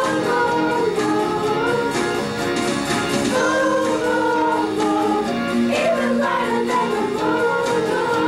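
Children's choir singing, with sustained notes that bend from one pitch to the next.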